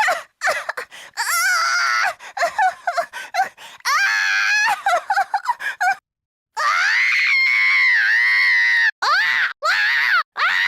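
A high-pitched cartoon character voice gives a string of pained cries, groans and screams, one short clip after another. About two-thirds of the way in, after a brief silence, comes one long held scream, followed by a few short cries near the end.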